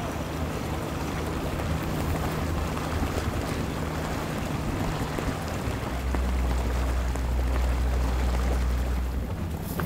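Boat engines running on the water with a steady low hum under the wash of water. The hum grows deeper and louder from about six seconds in, then drops back near the end.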